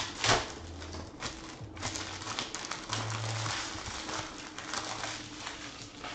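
Foil trading-card pack wrapper crinkling and tearing as it is opened, loudest in two sharp rips at the very start, followed by the rustle and clicks of the cards being handled.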